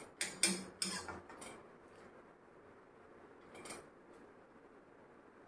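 A long metal ladle clanking against the side of a metal kadhai while noodles in water are stirred: four quick knocks in the first second and a half, then one more nearly four seconds in.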